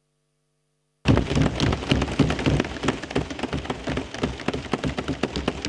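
A crowd of assembly members applauding: a dense, irregular patter of sharp strikes that starts suddenly about a second in and gradually thins out toward the end.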